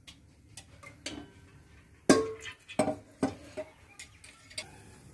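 A few sharp ticks and clicks from an aluminium pot of cooking oil heating on a gas stove. The loudest comes about two seconds in, with two more over the next second and a half.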